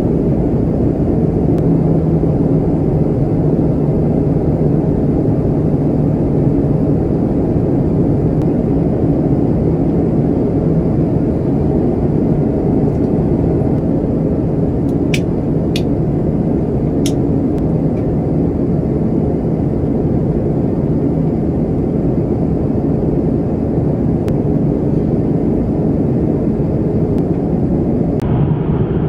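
Airliner cabin noise in flight, heard from inside the aircraft lavatory: a loud, steady rush of engine and airflow noise with a low hum under it. A few light clicks come about halfway through.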